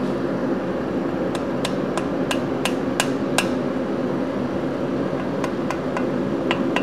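Light, sharp metal-on-metal taps as a steel cam bearing shell is tapped down into its saddle in an aluminium VW engine case with a small hand tool. About seven quick taps start about a second in, and a few more come near the end, over a steady background hum.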